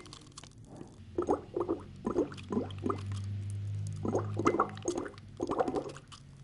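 A drink gurgling through a drinking straw in a glass: runs of short bubbly gurgles, over a low steady hum.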